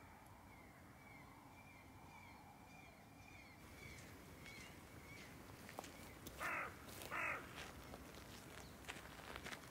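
A crow cawing twice, a second apart, about six and seven seconds in, over faint outdoor quiet. Footsteps on gravel start near the end.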